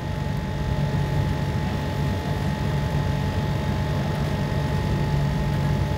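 Steady low mechanical hum with a faint steady high tone over it, unchanging throughout.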